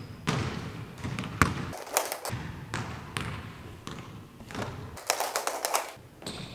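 Basketball bouncing on a hardwood gym floor: several separate thuds, then a quick run of sharper clicks about five seconds in.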